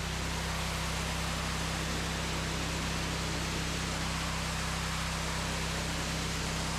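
Pressure washer running steadily, a motor hum under the hiss of the water spray.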